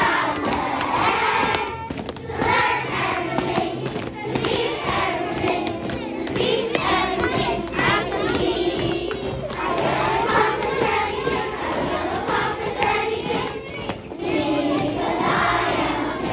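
A large group of young children singing and chanting together, with scattered hand claps.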